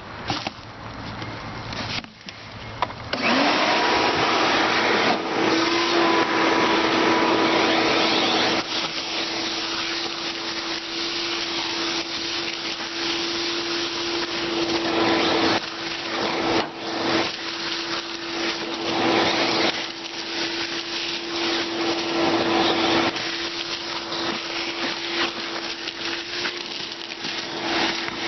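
Shop vac switched on about three seconds in, its motor spinning up to a steady whine, then running as it sucks dry leaves out of the bottom of a heat pump unit. The rush of air rises and falls as the nozzle moves.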